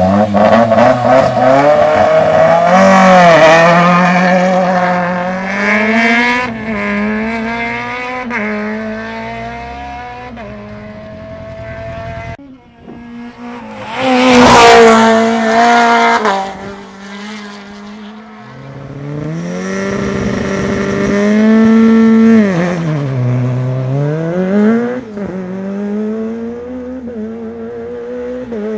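Rally car engines at full throttle, the pitch climbing through the gears and dropping sharply on lifts and braking, with the loudest moment about halfway through as a car passes close.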